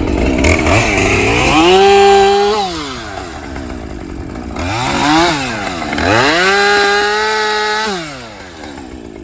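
Two-stroke chainsaw revved up to full throttle twice, each time held for about a second and then about two seconds before dropping back to idle, with a short throttle blip in between.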